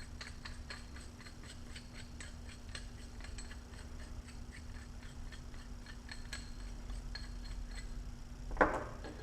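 Light metallic ticking, about three ticks a second, as the threaded body of an adjustable sway bar end link is turned to set its length, over a steady low hum; a louder clink near the end.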